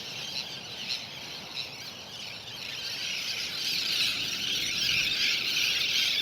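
A flock of seabirds calling together in a dense, high-pitched chatter that swells louder about halfway through; it is quite loud.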